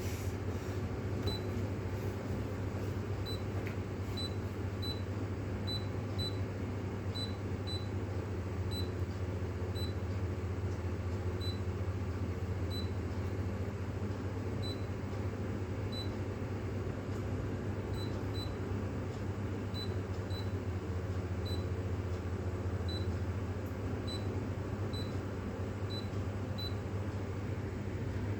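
De'Longhi espresso machine running with a steady low hum, overlaid by faint, short high pips at irregular intervals, roughly one or two a second.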